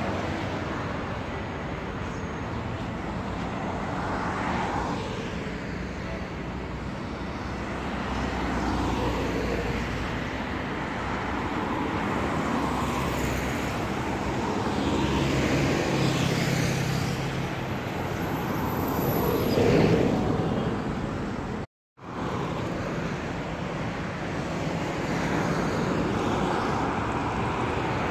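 City street traffic: cars, minibuses and city buses driving past, a steady road noise that swells and fades as each vehicle goes by. The sound cuts out completely for a moment about three-quarters of the way through.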